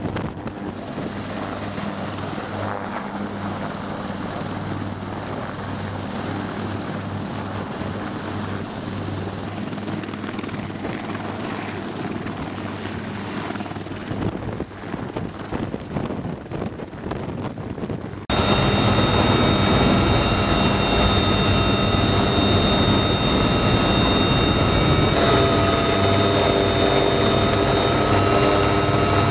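Military helicopters running on a flight line, a steady rotor and turbine rumble heard from outside. About two-thirds of the way through it cuts abruptly to the much louder noise inside a helicopter cockpit, where several steady high whines sit over the rotor noise.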